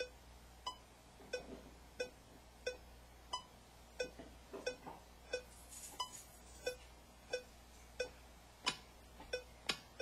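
Cubasis 3 metronome on an iPad ticking at 90 BPM, about one and a half clicks a second, with a higher accented click on each bar's first beat: the pre-count before recording. Near the end a few sampled rock drum-kit hits from the on-screen drum pads join the clicks.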